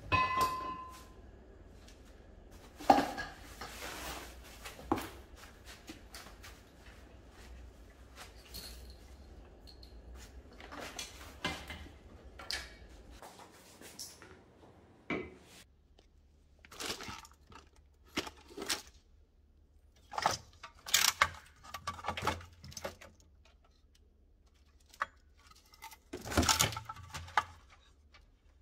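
Scattered clatter, knocks and clicks of metal parts and tyres being handled and moved about, with a faint low hum in the first half.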